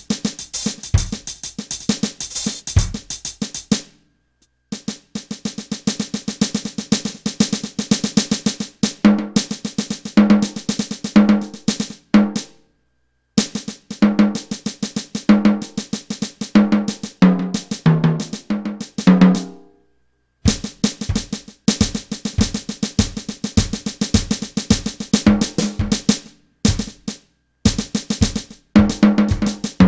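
Electronic drum kit played through a direct line: a groove of dense cymbal strokes with snare and bass drum, broken by tom fills that step down in pitch. The playing stops dead several times, at about 4, 12.5 and 19.5 seconds in, then starts again.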